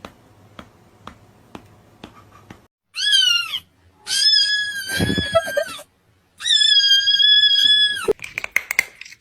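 Cat meowing three times: first a short meow that falls in pitch, then two long, drawn-out, high-pitched meows, the last held steady. A quick run of clicks follows near the end.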